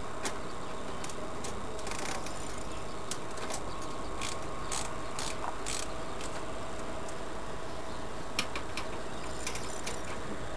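Irregular light clicks and ticks from the metal tube fitting of a carriage seat's padded backrest being worked by hand, thickest in the first half and a few again near the end.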